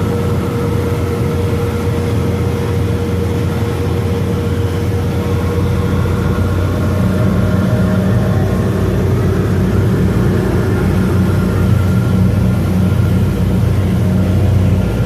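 Passenger ferry's engines droning steadily under way, with rushing wind and water noise over them; the low drone grows a little fuller about seven seconds in.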